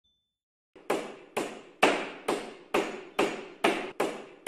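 A steady series of sharp knocks, about two a second, starting about a second in, each with a short fading tail.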